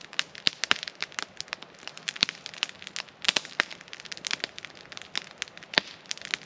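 Wood campfire crackling, with many sharp, irregular pops.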